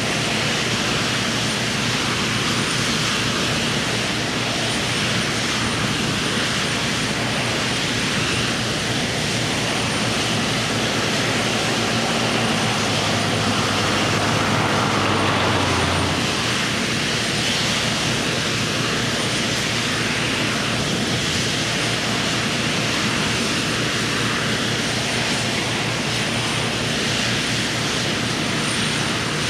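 Steady engine drone over a wide rushing noise, with a low hum that swells about twelve seconds in and stops abruptly a few seconds later.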